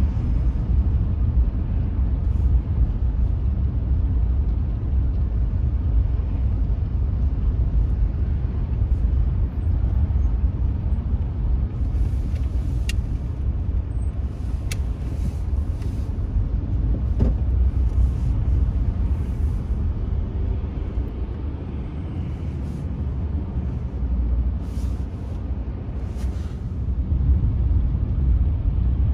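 Steady low road-and-engine rumble of a car driving through city streets, heard from inside the car. A few brief hissy ticks come through near the middle and again near the end.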